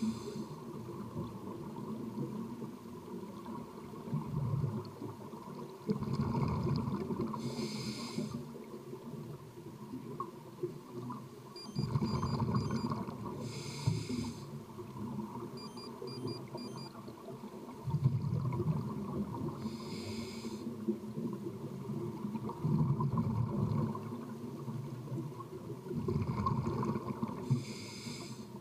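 Scuba diver breathing through a regulator underwater. Each breath is a short hiss of air on the inhale and a rumble of exhaust bubbles on the exhale, repeating about every six seconds.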